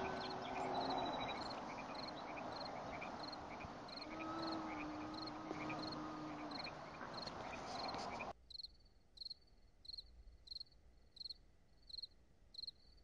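Cricket chirping at an even rhythm, short high chirps about one and a half to two a second, over a steady hiss of outdoor ambience. About eight seconds in the ambience drops away suddenly, leaving the chirps on their own.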